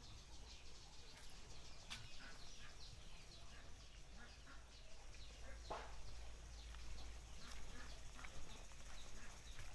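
Small birds chirping: many quick, short falling chirps, with one longer, louder falling call a little past the middle.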